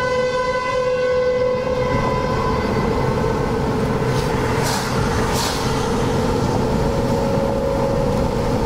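Outdoor tornado warning siren holding one steady tone, fading away after about two seconds and swelling back near the end, over a steady background rush. Two short hisses come about halfway through.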